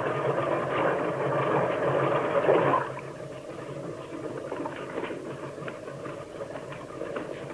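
Water splashing and churning around a swimmer: a loud, noisy rush that fades and then cuts off about three seconds in. After that come quieter faint knocks and rustles.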